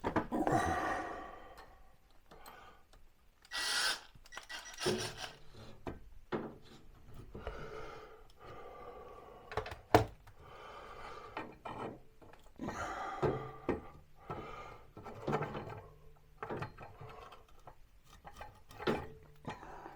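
Irregular handling noises of wood and tools: a wooden board and hardware being shifted, rubbed and scraped, with scattered knocks and one sharp knock about ten seconds in.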